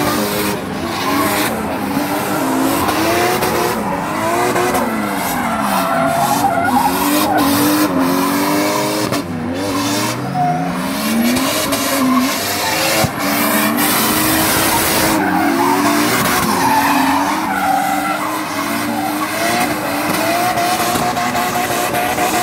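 Drift car's engine revving hard, its pitch swinging up and down again and again, with the rear tyres squealing and skidding as the car spins donuts.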